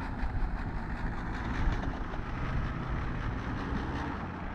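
Off-road 4x4's engine running steadily with a low drone.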